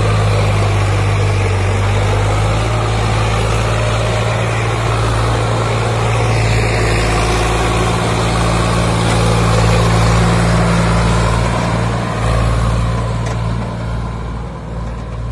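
Sonalika DI 745 Sikandar tractor's three-cylinder diesel engine running hard under a heavy pulling load, a steady deep drone that eases off a little near the end.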